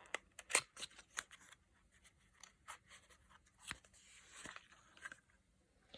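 Light clicks, taps and rustles of a small cosmetic package being handled, likely a gloss balm tube being opened, with the sharpest click about half a second in.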